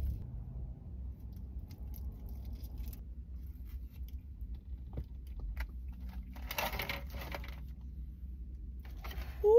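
Crinkling and rustling of a sandwich's paper wrapper and a plastic clamshell container as a cheesesteak is pulled apart by hand, with scattered small clicks and a denser rustle about six and a half seconds in. Right at the end a person's voice begins a loud hum.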